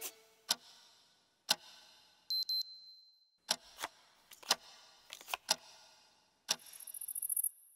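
A clock ticking about once a second, with a few extra clicks between the ticks. About two and a half seconds in comes a single high electronic beep lasting about a second. Near the end there is a second-long burst of rapid ringing strokes that grows louder.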